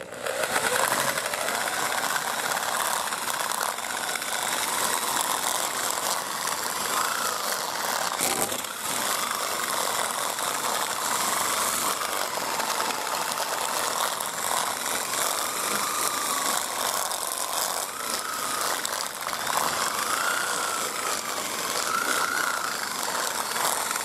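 All-Power electric drill spinning a rubber-finger chicken plucker attachment, the fingers slapping and stripping feathers from a chicken carcass. The motor's whine rises and falls in pitch as the plucker is pressed against the bird.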